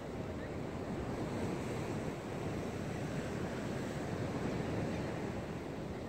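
Sea surf washing in a steady, continuous rush, with wind noise on the microphone.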